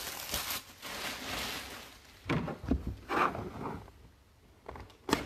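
A knife blade slitting the tape seal on a cardboard trading-card box, a scraping, zipper-like hiss followed by short rustles of the box being handled. A sharp click comes near the end.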